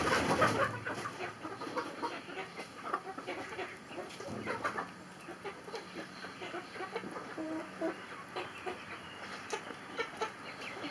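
A flock of hens clucking quietly as they feed on scattered corn, with many light scattered clicks. A brief loud rustle comes at the very start.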